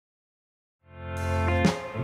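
Silence, then about a second in a rock band's music fades in: a held chord swelling up, with a drum hit near the end.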